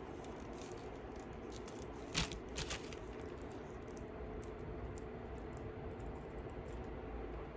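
Beads on a thread clicking and rattling faintly as a beaded loop is tried over a button, with a few sharper clicks about two seconds in, over a steady low background hum.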